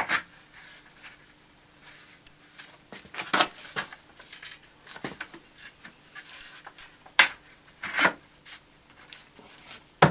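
Wooden handrail being pressed and squeezed down onto its baluster insert by hand: a few sharp wooden knocks, the loudest two near the end, with light rubbing of hands along the rail between them.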